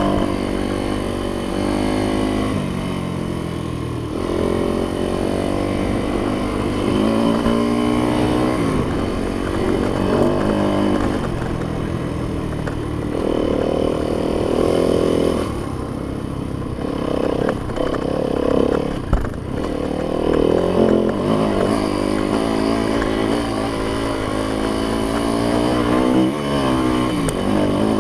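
Yamaha YZ dirt bike engine under way, its pitch climbing and dropping again and again as the rider works the throttle through the gears.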